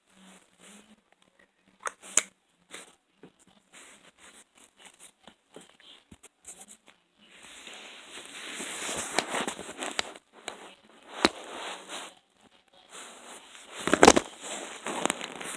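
Slime being kneaded and squeezed by hand: scattered small crackles and clicks, then longer stretches of dense wet crackling broken by a few sharp pops, the loudest about 14 seconds in.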